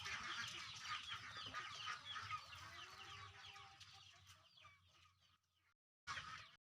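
A flock of chickens clucking and calling together, many short overlapping calls. The sound fades away over the last few seconds and cuts off, with a brief half-second return near the end.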